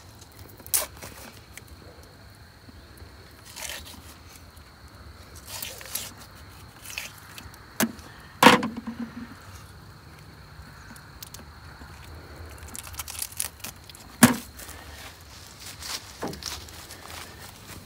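Scattered knocks, clicks and scrapes of hands and tools at work while a catfish is skinned and cleaned over a plastic bucket. The loudest is a sharp knock with a short ring about eight and a half seconds in.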